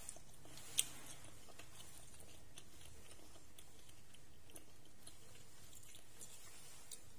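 Faint close-up chewing of braised pork belly and quail eggs: soft wet mouth sounds and small scattered clicks, with one sharp click about a second in.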